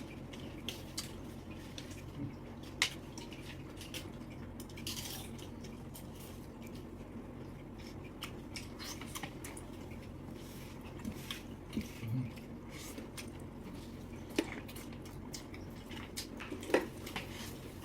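Seafood being eaten close to the microphone: scattered sharp clicks, smacks and squishes of chewing and handling shells, over a low steady hum.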